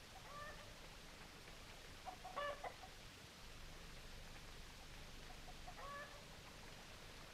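Faint chicken clucking: a few short calls spaced a few seconds apart, the loudest cluster about two seconds in.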